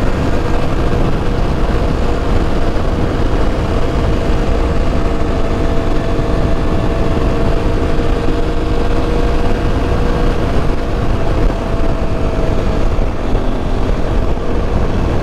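Aprilia Tuareg 660 parallel-twin motorcycle engine running at a steady cruise under heavy wind rush on the microphone. The steady engine note fades a few seconds before the end.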